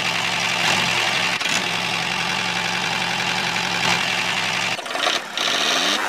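A small motor running steadily with an engine-like idle, the drive of a miniature DIY toy tractor. It dips briefly about five seconds in.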